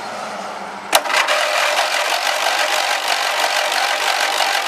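Electric starter cranking a Briggs & Stratton garden tractor engine, which turns over steadily without firing because it has no spark. The cranking starts with a sharp click about a second in.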